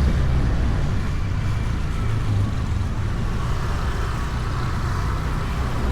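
Honda Beat scooter riding along, its small engine running under a steady low rumble of wind and road noise.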